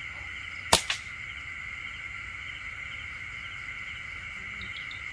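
A single sharp gunshot about a second in, fired at a bird roosting in the palm fronds, over a steady high chirring chorus of night insects.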